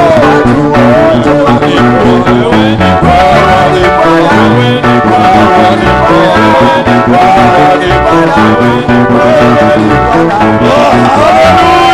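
Church worship music: plucked guitars and a bass line, with a voice singing a gliding melody over them.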